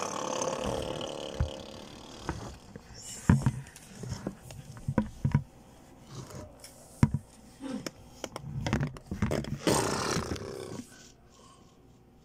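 A rough growling roar at the start that fades over about two seconds, then scattered sharp knocks of plastic toys being moved, and a second rough roar shortly before the end.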